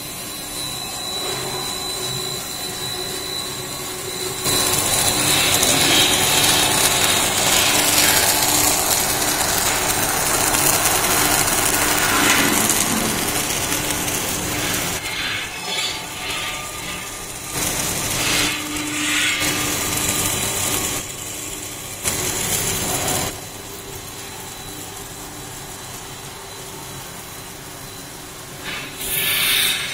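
Corn-chip production line machinery running, built around a twin-screw extruder: a steady hum with a thin high whine, and a loud hiss from about four seconds in that lasts some ten seconds, then shorter noisy surges that come and go.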